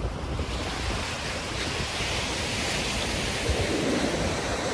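Ocean surf washing onto the beach, a steady rushing wash that swells a little about a second in, with some wind on the microphone.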